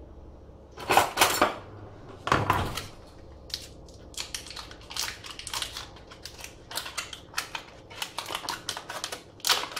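A springform cake tin being handled while it is buttered and floured. A few sharp clatters come in the first three seconds, then a long run of quick light taps and knocks.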